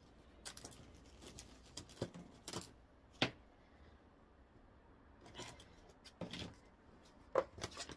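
Rustling and light knocks of small painted canvases being handled and set down, with one sharper click about three seconds in.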